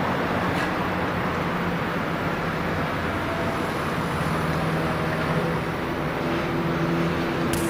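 Steady hum of road traffic, cars running on the road below.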